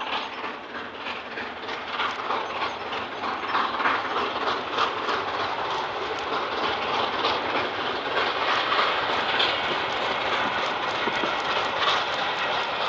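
An LNER A4 Pacific, a three-cylinder steam locomotive, passes at speed under steam, and its train of coaches follows with a steady rush and rapid clicking of wheels on the rails.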